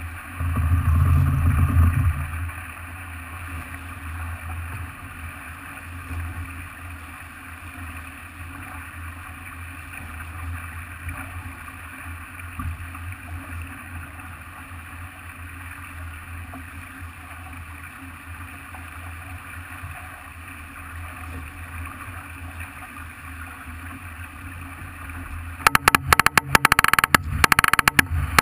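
Farr 40 racing yacht under sail: a steady rush of water along the hull with wind, and a louder surge about a second in. Near the end comes a loud stretch of rapid crackling lasting about two seconds.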